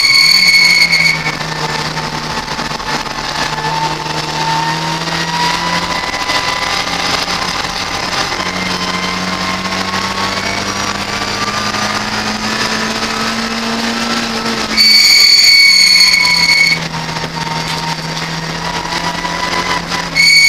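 Ford Fiesta race car engine heard from inside the cabin, running hard under full throttle with its pitch slowly climbing and dropping through gear changes. A loud, steady, high electronic beep cuts in for about a second at the start and again for about two seconds around fifteen seconds in.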